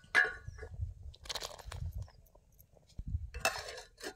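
Metal clinks and scrapes of a steel plate being set down as a lid on a steel cooking pot, in a few short separate knocks.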